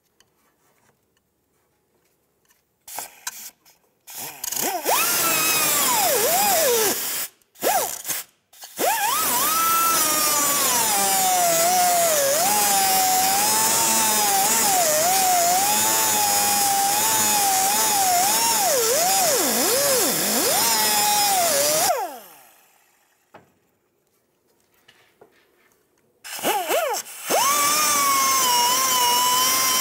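High-speed cut-off wheel grinding through an upper ball joint's metal stud to cut it flush with the control arm. A high whine that wavers and dips in pitch as the wheel loads up. It starts with a few short bursts, then runs in two long cuts with a pause of a few seconds between them.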